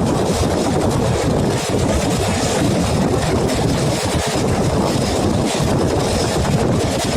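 Express passenger train running along the track: a steady, loud rumble of wheels and carriages.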